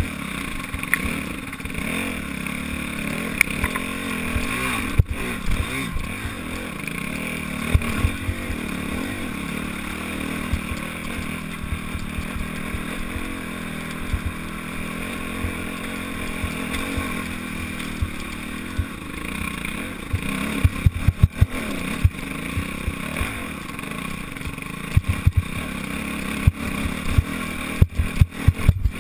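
Enduro motorcycle engine running under load on a rocky climb, its pitch rising and falling with the throttle. Sharp knocks and clatter from the bike on the rocks come through, and they grow thicker over the last several seconds.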